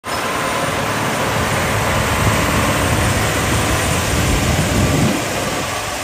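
Tracked tractor's engine running under load as it pulls a Salford 4200 tillage tool through hard, dry wheat stubble, along with the steady rush of the tool's spring-mounted blades working the ground. The sound is loud and continuous and drops a little about five and a half seconds in.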